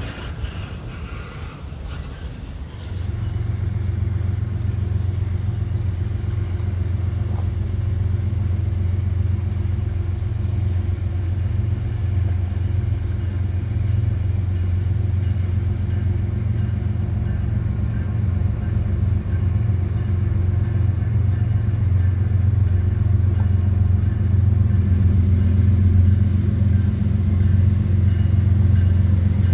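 Diesel locomotive engine of a CN train, a steady low rumble with a deep hum, growing gradually louder as the train slowly approaches. It begins about three seconds in.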